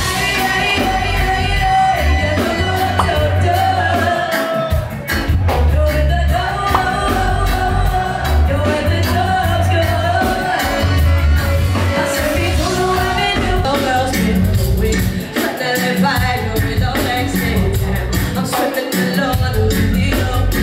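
Live band music: a woman singing into a microphone over electric guitar, bass and drums, with a strong, pulsing bass line.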